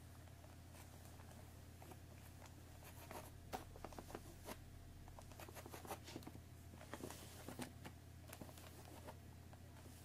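Long fingernails tapping and scratching on a cardboard tea box. The taps are faint and irregular, sparse at first and more frequent from about three seconds in.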